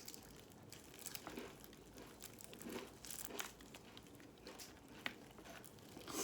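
Close-miked eating sounds of fried chicken: scattered crisp crackles and crinkles as the crunchy coating is torn and chewed.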